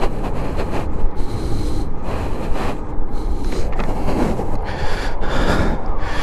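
Steady, loud wind buffeting the microphone of a camera on a moving e-bike, rising and falling in gusts.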